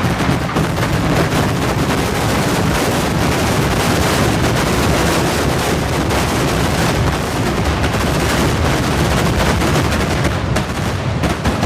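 Vedikettu fireworks barrage: a dense, unbroken rapid-fire string of firecracker explosions, like machine-gun fire, thinning out near the end.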